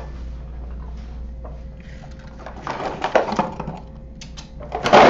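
Cardboard box being pushed and handled across a workbench: rustling scrapes about three seconds in, then a louder scrape and knock as it is set down near the end, over a steady low hum.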